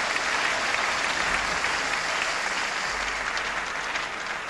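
Crowd of spectators applauding a won point, dying down a little near the end.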